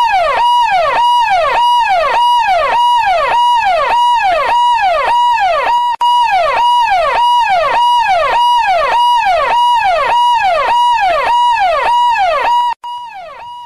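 Emergency-vehicle siren sound effect, loud: a tone held high that then drops sharply, repeating about twice a second. It breaks off for an instant about six seconds in and stops about a second before the end.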